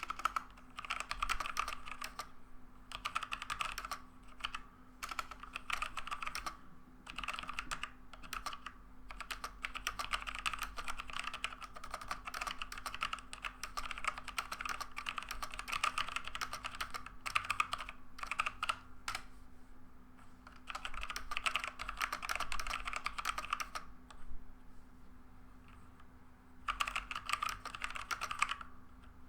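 Typing on a Logitech G413 mechanical keyboard with Romer-G tactile switches: a dense patter of key clicks in long runs, with a short pause about two-thirds through and a longer one a few seconds before the end. It is a fairly quiet clatter, which the owner puts down to fingers striking the keycaps and keys bottoming out rather than to the switches themselves.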